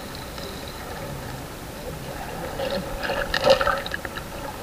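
Muffled underwater sound heard through an action camera's waterproof housing: water moving around the camera, with scattered bubbling and crackling about three seconds in.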